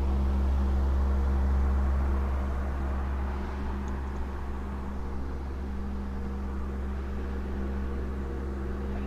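Large electric floor fan running: a steady motor hum and rush of air, growing slightly quieter about three seconds in.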